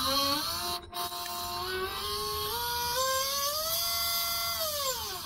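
A single brushless motor on an FPV quadcopter, running with no prop, whines as the throttle is stepped up, its pitch rising in steps and then falling away as it spins down near the end. This is the motor whose gyro trace shows heavy vibration, which the owner takes, if he is not mistaken, for the cause of his mid-throttle oscillations and video jello.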